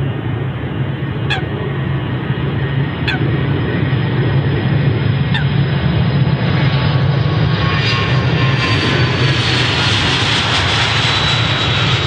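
Four-engined BAe 146-family jet on its takeoff run at full power. The engines' rumble and whine build as it rolls past, loudest about nine to eleven seconds in, and the whine falls a little in pitch as it goes by. A bird gives four short calls over the engine noise in the first half.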